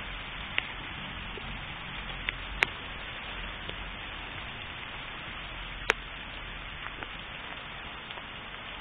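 Hail and rain falling steadily, a constant hiss, with a few sharp clicks of single hailstones striking close by, the loudest about two and a half seconds in and about six seconds in.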